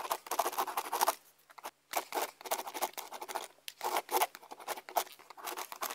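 Stylus scratching across a drawing tablet in a quick run of separate strokes, sketching and colouring, over a faint steady hum.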